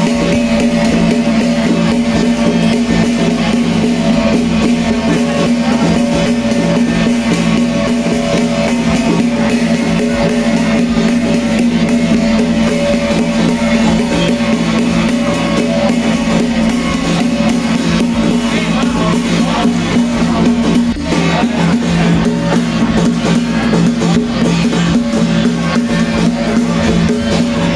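Music with a drum kit, bass and guitar playing steadily at a loud level.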